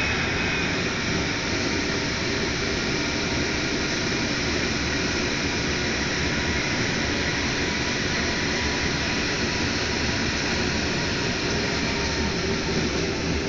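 Paris Métro MP89CC rubber-tyred train running at steady speed through the tunnel, heard from inside the car: an even rumble and rush of running noise with a few faint steady tones, and no change in level.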